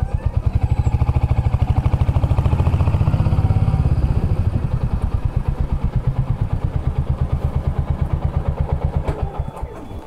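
Royal Enfield Hunter 350's 349 cc single-cylinder engine running at low revs, its exhaust pulsing in a steady, even beat. The note rises a little and gets louder about two to three seconds in, then fades away toward the end.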